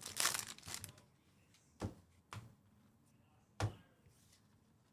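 Trading cards being handled: about a second of crisp rustling as cards are slid and flicked through, then three short separate taps of cards being set down or squared.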